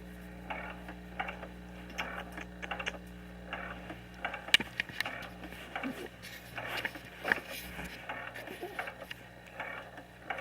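Scattered small clicks and ticks with a few faint short sounds, over a steady low hum.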